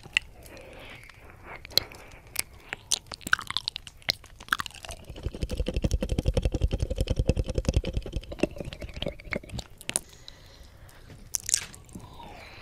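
Wet mouth sounds, ear licking and sharp mouth clicks, made right against the silicone ear of a binaural microphone. From about five to nine and a half seconds in there is a rapid, even tongue flutter with a strong bass thrum.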